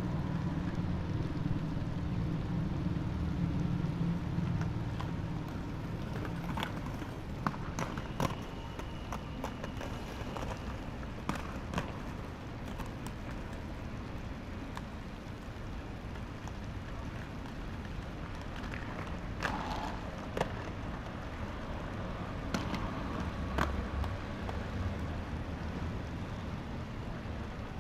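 Skateboard wheels rolling over concrete as a steady rumble, with sharp clacks of boards hitting the ground scattered through, a cluster about a quarter of the way in and another past the middle.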